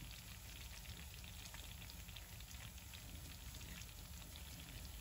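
Thick cornmeal porridge bubbling in a steel pot on the stove: a faint, steady patter of small pops.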